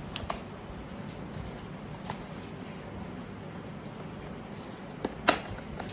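A few sharp clicks and taps from a small parcel being handled, the loudest about five seconds in, over a steady low room hum.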